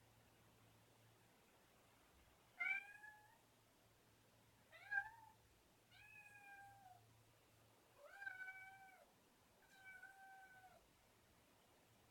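Domestic cat meowing five times in a row, separate drawn-out calls a second or so apart, demanding breakfast and waking the household.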